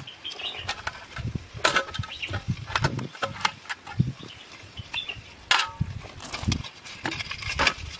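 A kitchen knife scraping and cutting the shell of a live crab, with a scatter of sharp clicks and metal clinks against aluminium basins.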